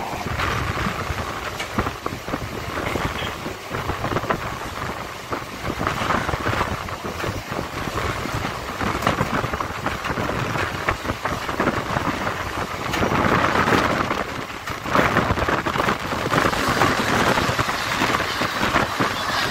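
Running noise of a moving train heard from inside the coach by the window: a dense rushing of wind and rail noise, full of small rattles and clicks. It grows louder about two-thirds of the way through.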